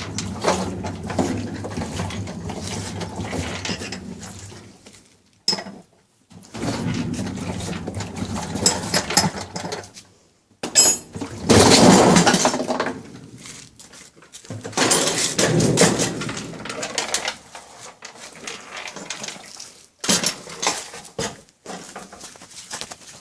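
Metal tools and washing-machine parts clanking, knocking and scraping during disassembly, in several short stretches broken by abrupt cuts.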